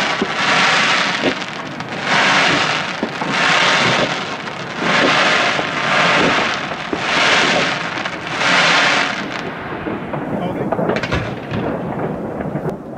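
Fireworks going off in a rapid series: about nine rushing, rumbling bursts, roughly one a second. About nine seconds in they thin out to scattered crackles and pops.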